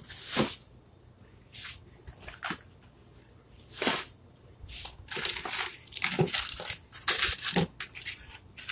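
Plastic blister packs and packaged craft supplies being picked up and moved about, crinkling and rustling in irregular bursts that grow busier in the second half.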